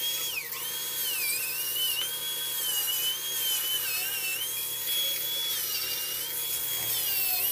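Handheld angle grinder with a cutting disc cutting through a plastic drain pipe: a high motor whine whose pitch sags each time the disc bites into the pipe and recovers as the load eases, several times over.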